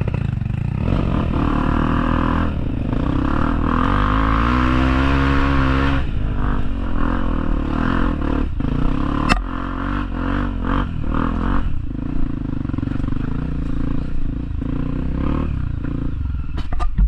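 Off-road motorcycle engine revving hard, its pitch rising and falling a few seconds in, then running on more steadily, with scattered sharp clicks and knocks.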